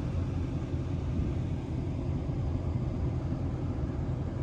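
Wind buffeting the microphone: a steady, fluttering low rumble with no distinct tones.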